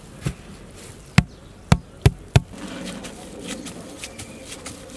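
A metal lid being set and pressed down onto the dough-sealed rim of a clay biryani pot to seal it for dum cooking: a handful of sharp knocks in the first two and a half seconds, then lighter taps.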